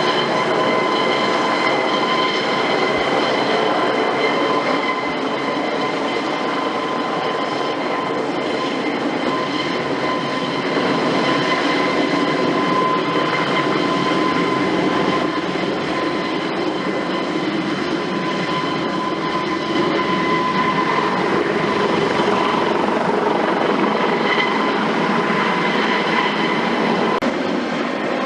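Eurocopter AS365 Dauphin helicopter running, its twin turboshaft engines giving a steady high whine over a broad rushing noise, swelling slightly now and then.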